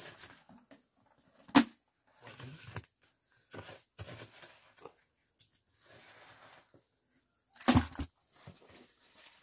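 Wet cement mortar being scraped and smoothed by hand and trowel while shaping a stove top, in short intermittent strokes. A sharp knock comes about one and a half seconds in, and a heavier thump near the end.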